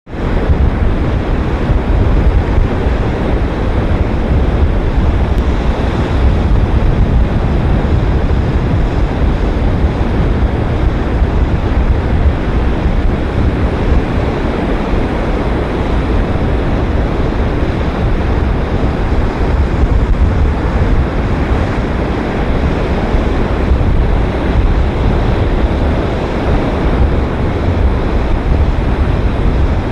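Pacific Ocean surf on a sandy beach: a continuous, even wash of breaking waves with a heavy low rumble.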